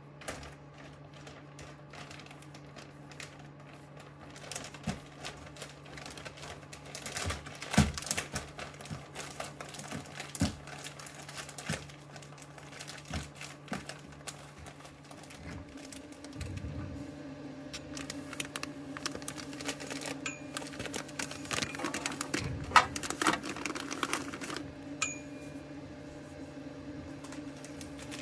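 Plastic grow bags of millet grain being handled and shifted in a plastic tub: irregular crinkling, clicks and rustles, busiest about a quarter of the way in and again near the end, over a steady low hum.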